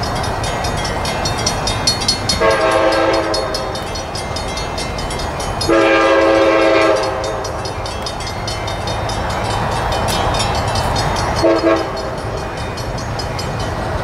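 Approaching freight train's diesel locomotive air horn sounding three blasts: two of about a second each, the second the loudest, then a short one near the end, over the steady rumble of the oncoming train.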